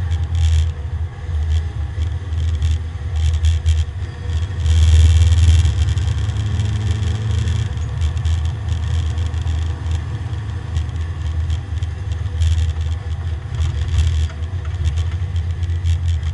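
Porsche 924 race car's four-cylinder engine heard from inside its stripped cabin, running with a steady low drone that swells louder about five seconds in, with clicks and rattles over it.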